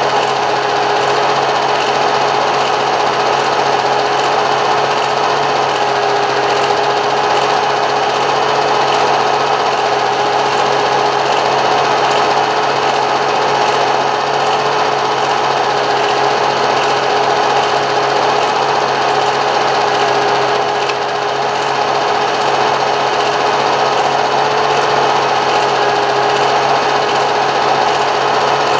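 Film projector running steadily: an even mechanical whirr and clatter with a constant humming tone.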